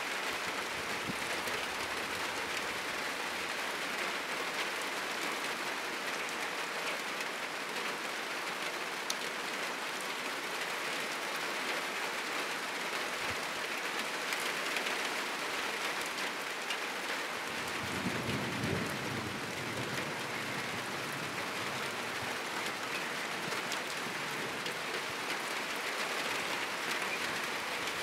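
Heavy rain falling steadily on a roof and the surrounding trees, an even hiss throughout. A short, low rumble of thunder comes about eighteen seconds in.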